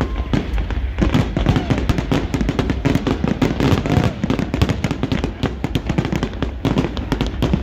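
Fireworks display in a dense, continuous barrage of rapid bangs and crackling pops, many bursts a second.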